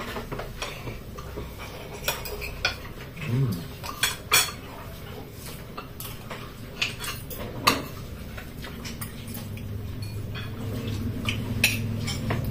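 Metal spoons and forks clinking and scraping on ceramic plates as several people eat, in short, irregular clinks throughout.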